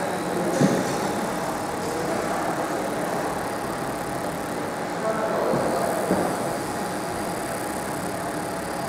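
Fiber laser marking machine running while it marks an aluminum plate: a steady hum and whir with a faint high tone. Two light knocks come through, one about half a second in and one around six seconds in.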